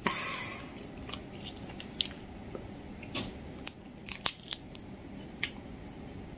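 Homemade slime being stretched, folded and squeezed in the hands, giving scattered small sticky clicks and pops.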